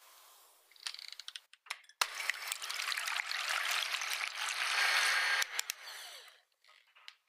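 Electric hand mixer beating raw egg whites in a glass bowl: the wire beaters churn and splash the liquid and rattle against the glass. It starts abruptly about two seconds in and fades out near six seconds, after a few faint ticks.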